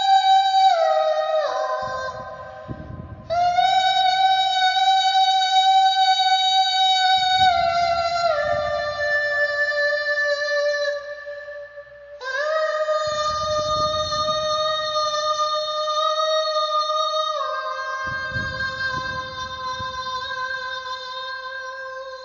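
A high voice holding long, steady notes in three phrases, each note stepping down in pitch: a short falling phrase, then a held note that drops in steps, then a long note that steps down once more near the end.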